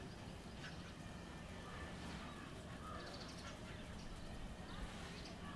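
Faint outdoor background with a few short, distant bird calls.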